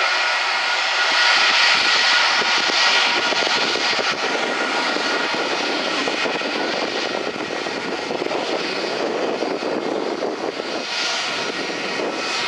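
Twin turbofan engines of an Airbus A320-family airliner at low taxi thrust: a steady jet whine with a few held tones over a broad rush.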